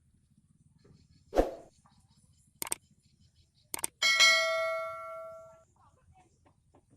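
A dull thump, two sharp clicks, then a metal object struck once, ringing with a bell-like tone that fades over about a second and a half.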